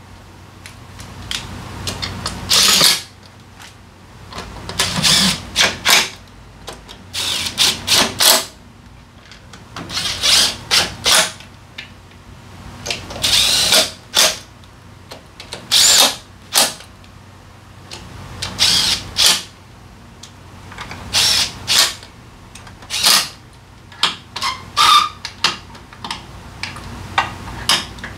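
Cordless impact wrench driving the bolts of a Honda Forza 350's CVT transmission cover, run in many short bursts of a second or less with brief pauses between them.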